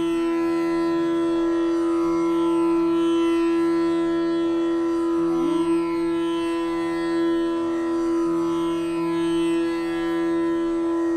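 Instrumental music in an Indian classical style, with melody notes that change every second or two over a steady, unbroken drone.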